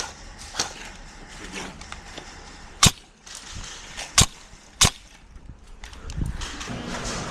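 Five sharp, irregularly spaced clicks or snaps, with a low rumble building near the end.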